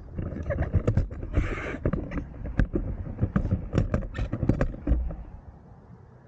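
Irregular knocks and clicks of things being handled and moved about, with a brief scrape about a second and a half in; the knocking dies away near the end.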